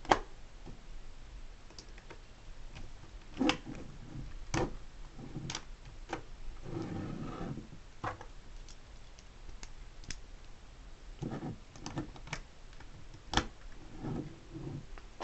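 Lego puzzle box being reset by hand: plastic Lego pieces clicking and knocking irregularly as parts are pushed back into place, with a short stretch of sliding and rattling about seven seconds in.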